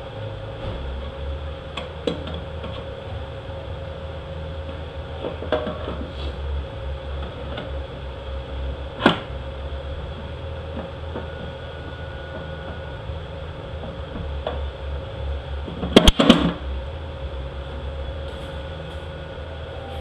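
Metal parts of a 68RFE automatic transmission clinking and knocking now and then as they are handled and set into the case, over a steady shop hum. A quick cluster of sharp knocks about sixteen seconds in is the loudest.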